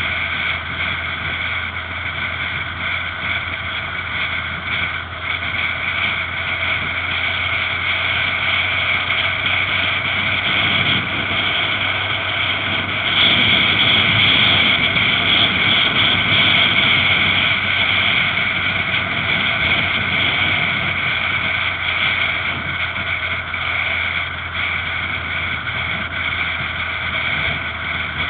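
Yamaha XJR motorcycle's inline-four engine running steadily at cruising speed, mixed with wind rushing past the helmet-mounted camera. It gets louder about halfway through.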